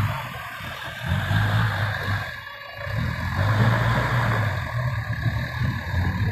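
Dump truck engine running in uneven surges, louder and steadier from about three seconds in while the tipper bed is raised to dump its load of soil.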